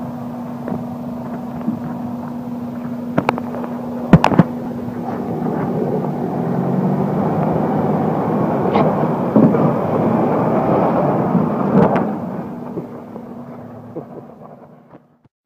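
Toyota Hilux engine running steadily as the 4WD crawls slowly through a rutted sandy trench with its rear diff locker engaged, growing louder as it passes close by and then fading away. A few sharp knocks stand out, loudest about four seconds in.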